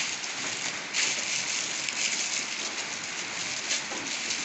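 Plastic packaging rustling and crinkling as hands sort through the wrapped parts of a kit, over a steady hiss.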